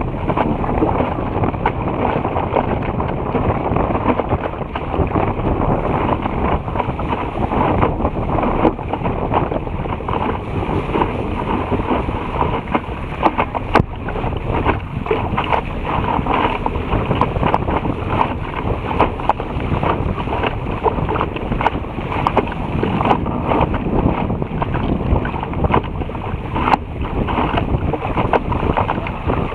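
Water rushing and splashing past the hull of a Topper Topaz sailing dinghy moving fast through chop, mixed with wind buffeting the microphone. A couple of sharp knocks stand out, one about halfway through and one near the end.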